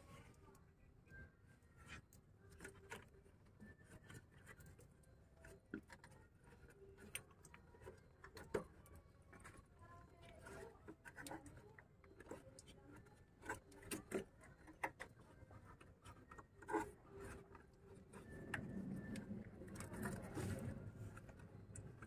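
Faint scattered clicks and rubbing as a hand works on wiring and a connector under the truck. A louder, muffled low rumble comes in for a few seconds near the end.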